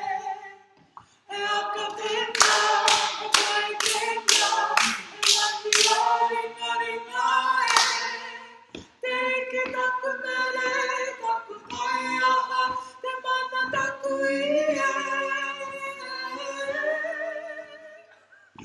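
Kapa haka group singing a Māori song unaccompanied, a woman's voice leading, with a short break about a second in. Between about two and six seconds in, about eight sharp claps ring out at about two a second in time with the song; the singing fades out near the end.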